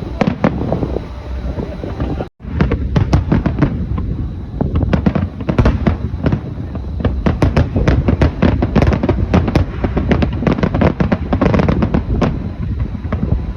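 Dense, continuous barrage of fireworks: rapid overlapping bangs and crackles over a steady low rumble, with a momentary gap in the sound a little after two seconds in.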